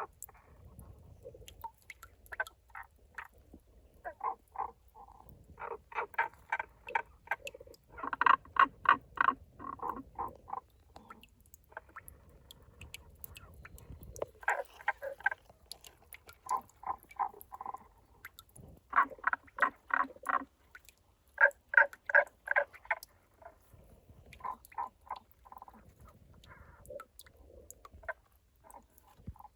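Tago's brown frog calling from a water-filled rock crevice. It gives bout after bout of short, rapid, rattling croaks, each run a second or two long, with brief pauses between runs.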